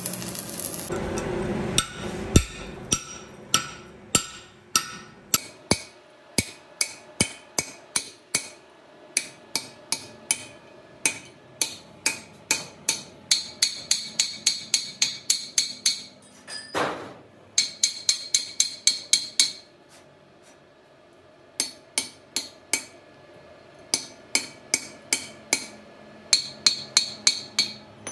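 Hammer blows on steel at a truck wheel hub, driving at a welded broken stud to free it: runs of sharp, ringing metal strikes about two to three a second, with short pauses and one longer break about two-thirds through. A brief arc-welding crackle sounds in the first second.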